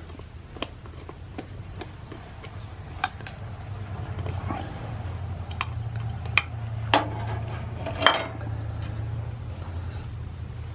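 Small metal clicks and clinks of screws and lamp-fixture parts being handled, irregular, with a few sharper ones in the second half, over a steady low hum.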